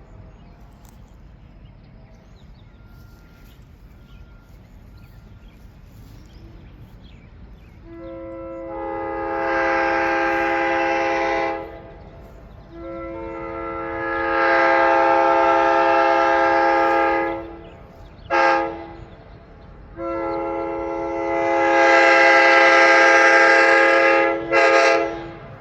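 Nathan K5LA five-chime locomotive air horn sounding a chord after several seconds of quiet. It blows three long blasts with a short toot after the second and another after the third, and the first and last blasts start softer and swell as the air comes up.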